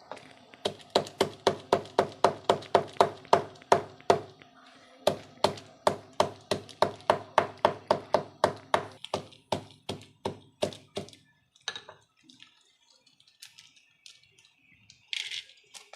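Pestle pounding black peppercorns in a mortar: a quick steady run of ringing strikes about four a second, a short pause, then a second run that slows and fades into a few light taps.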